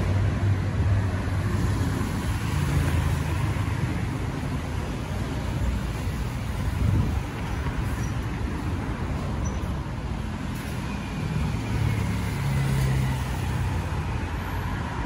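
Street traffic: cars and motorcycles running along the road, a steady low rumble that swells a few times as vehicles pass.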